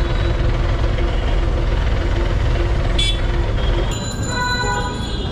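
Street traffic: a steady rumble of passing vehicles with a low drone. A brief high-pitched sound comes about three seconds in, and a held high tone sounds from about four seconds in.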